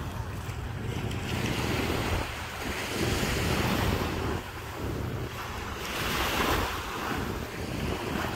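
Small waves washing onto a sandy beach, the hiss of the wash swelling about three seconds in and again around six seconds, with wind buffeting the microphone in a steady low rumble.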